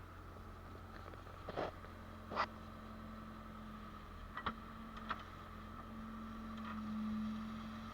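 Case 580L backhoe loader's diesel engine running steadily, getting louder about seven seconds in, with four short sharp clanks through the middle.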